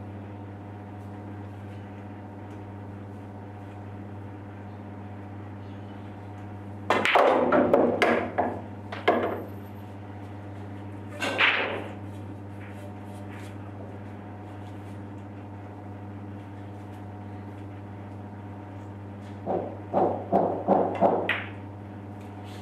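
Pool balls clacking on a pool table: the cue tip strikes the cue ball, and the balls hit each other and the cushions in two quick runs of sharp clicks, about 7 and 20 seconds in, with a single knock between them. A steady low hum runs underneath.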